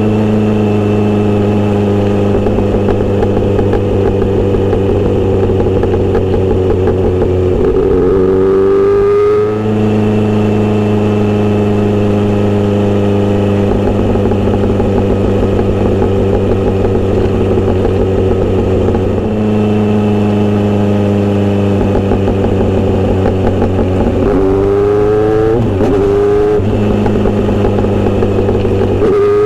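Kawasaki Z900RS inline-four running through a Misty Kintaro short steel-pipe exhaust, heard while riding. It holds a steady speed for long stretches and revs up with rising pitch about eight seconds in and again after about 24 seconds, dropping back at each gear change.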